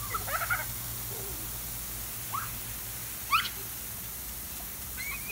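Young children's short, high-pitched squeals as they run through a lawn sprinkler: a few brief rising cries scattered through, the loudest right at the end.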